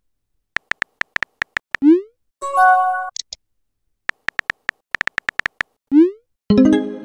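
Texting-app sound effects: two runs of rapid keyboard tap clicks, each ended by a short rising pop as a message is sent. A brief electronic chime sounds between them, about two and a half seconds in.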